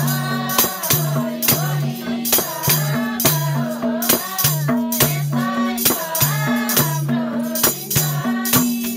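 Music: a singing voice over a repeating two-note bass line, with sharp percussion strokes several times a second.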